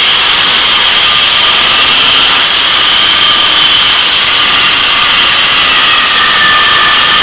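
Corded electric drill fitted with an abrasive disc, running flat out and grinding against a workpiece: a loud, steady high whine over a harsh rasping noise.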